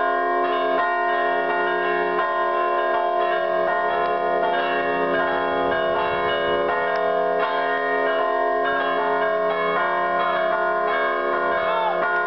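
Church bells pealing continuously, several bells struck in quick succession so that their tones overlap and ring on: a festive peal for a village feast.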